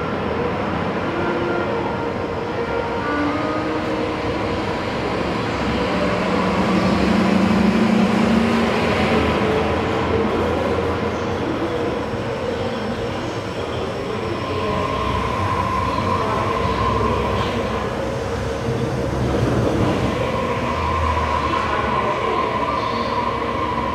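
Daegu Metro Line 3 3000-series straddle-type monorail train running past on its rubber-tyred wheels along the concrete guideway as it arrives at the station: a steady rumble, loudest about eight seconds in.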